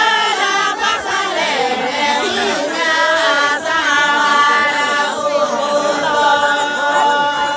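A group of men singing a Santali traditional song together, holding long notes in several voices.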